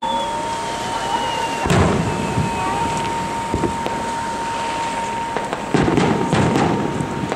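Aerial firework shells bursting: a rising whistle at the start, a loud bang about two seconds in, and a run of bangs near the end.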